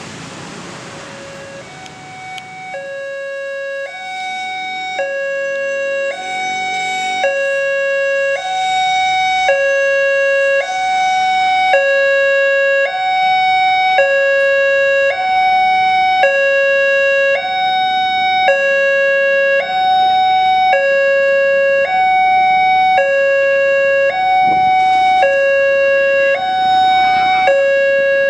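Indonesian railway level-crossing electronic warning alarm sounding from the crossbuck loudspeaker: a two-tone ding-dong alternating low and high about once a second, warning that a train is approaching. It grows louder over the first several seconds, then holds steady.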